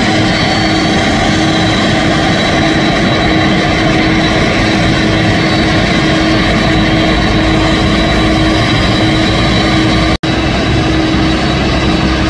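Boeing 767's turbofan jet engines running steadily as the airliner taxis: a continuous jet rush with a steady hum and a faint high whine. The sound cuts out for an instant about ten seconds in.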